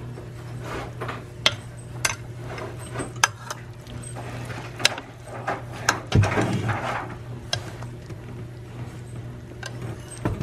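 Metal ladle clinking and scraping against a ceramic slow-cooker crock while scooping out cooking juice, with sharp clinks scattered throughout and a longer stretch of sloshing juice about six seconds in, over a steady low hum.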